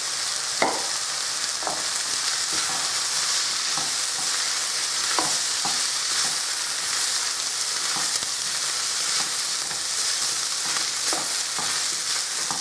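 Chicken and vegetable stir-fry sizzling steadily in a hot wok, with the spatula scraping and knocking against the pan every second or so as it is stirred.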